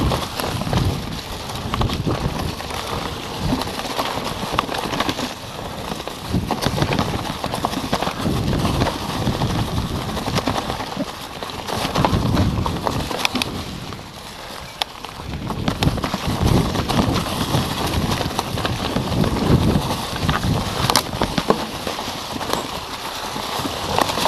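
Mountain bike rolling down a rough forest trail: tyres crunching over dry leaves and stones, and the bike rattling and knocking over roots and bumps in a rush of noise. It eases and quietens briefly about two-thirds of the way through, then picks up again.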